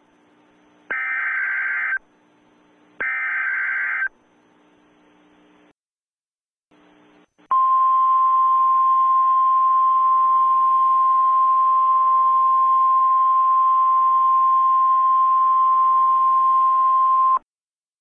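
Emergency Alert System signal: two short buzzy data bursts of the alert header, each about a second long. After a pause comes the single steady attention tone, which holds for about ten seconds and cuts off suddenly near the end.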